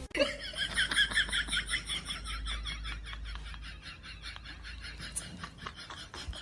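An animal giving a fast run of short, high calls, several a second, growing fainter after the first couple of seconds.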